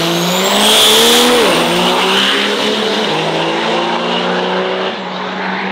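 Race vehicle's engine at full throttle on a drag strip pass. The engine pitch climbs and drops sharply at a gear shift about a second and a half in, then holds, with further small steps, under a high rising whistle early on.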